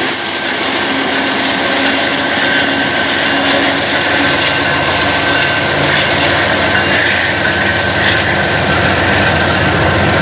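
Union Pacific diesel freight locomotives passing close by with their engines running, followed by double-stack intermodal container cars rolling past on the rails. A loud, steady rush and rumble with a few steady tones on top, the low rumble heavier once the cars are going by.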